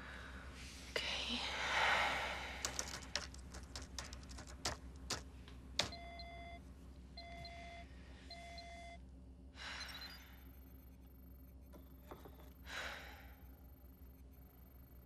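A run of sharp clicks, then three short electronic beeps about a second apart, followed by two brief hissing swells.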